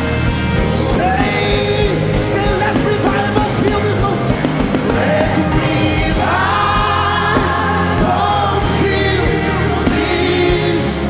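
Live gospel worship music: voices singing over a band, with a steady bass line.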